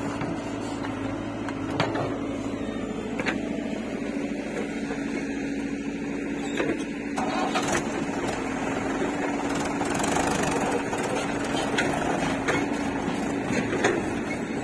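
Diesel engines of a JCB 3DX backhoe loader and a Mahindra tractor running with a steady hum, with occasional short knocks as the backhoe bucket works the soil.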